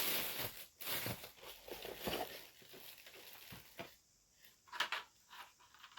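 Plastic slot-car track pieces and packaging being handled while unpacking: rustling and light knocks, busiest in the first few seconds, then a few sharp clicks near the end.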